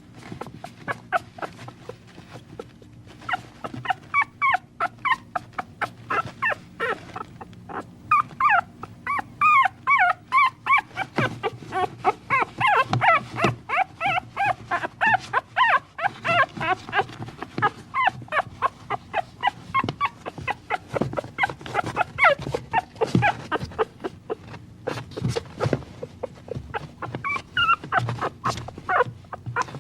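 Young puppies whimpering and yipping: many short, high-pitched squeaky cries, several a second, busiest through the middle.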